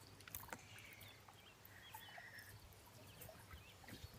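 Near silence: faint outdoor garden ambience with a few small bird chirps and soft ticks.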